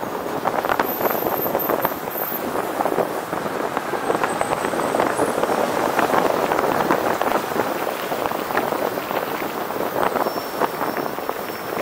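Wind rushing over the microphone and road noise during a ride through city streets: a steady, dense crackling hiss.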